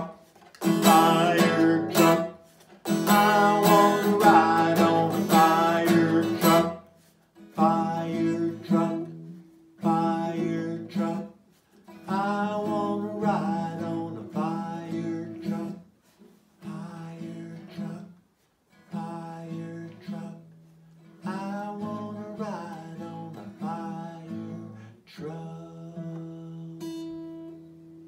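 Acoustic guitar strummed while a man sings in short separate phrases that grow gradually quieter. Near the end the voice stops and a guitar chord rings on.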